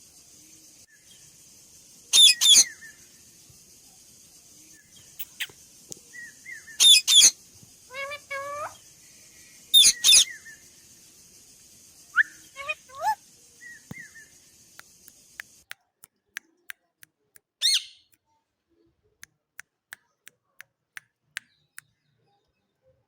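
Indian ringneck parakeet calling: loud, shrill screeches, each in a quick pair, with softer chirps in between. In the last third, a run of short sharp clicks comes about twice a second, with one more screech among them.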